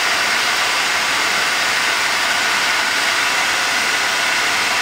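Electric heat gun running steadily, its fan blowing hot air in an even rushing noise.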